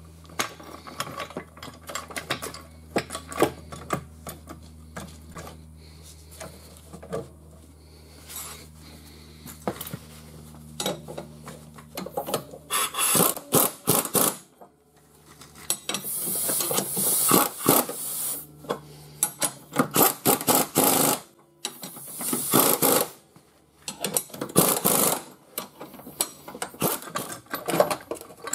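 Metal clinks and scrapes as a steel pinch weld clamp is handled and fitted, then a pneumatic impact wrench runs in several short bursts of about a second each, driving the clamp bolts home in the second half.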